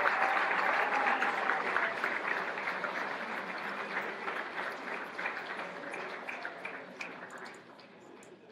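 Audience applauding, loud at first and dying away gradually.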